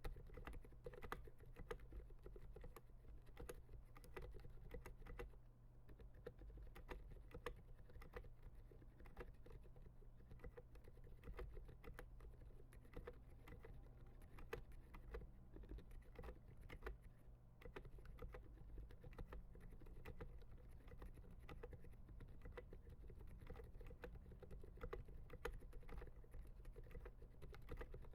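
Continuous typing on a MechMini2 mechanical keyboard with lubed 67 g Zilent silent tactile switches and SA-profile keycaps: a soft, muted patter of keystrokes at an uneven pace, over a faint low hum.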